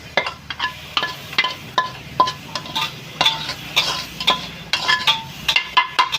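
A metal utensil repeatedly clinking and scraping against a pan while fried rice is stirred, about three ringing clinks a second and coming closer together near the end.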